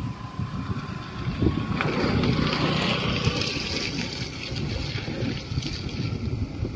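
Wind buffeting the microphone, an uneven low rumble, joined about two seconds in by a higher rustling hiss.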